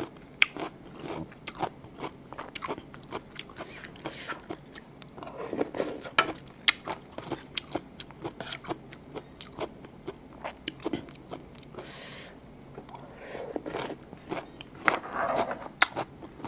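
Close-up eating sounds: crunching, biting and chewing food with many sharp crackly clicks, louder crunchy stretches about five seconds in and again near the end.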